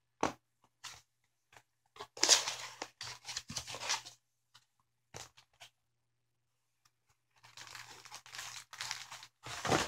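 Paper packing and a cardboard box being handled and torn open: a few sharp taps, then a burst of tearing and crinkling about two seconds in that lasts about two seconds, and more rustling near the end.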